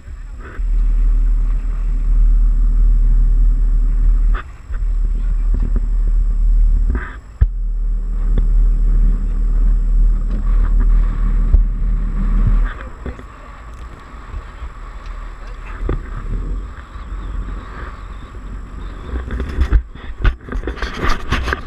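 Small open speed boat running on open sea: a steady engine drone under a heavy low rumble, which drops away about two-thirds of the way through. A cluster of knocks and splashy noise near the end.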